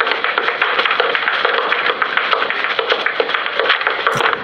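Tap shoes tapping rapidly on a hard floor in a dense, continuous clatter of taps, as in a tap dance routine. It cuts off suddenly near the end.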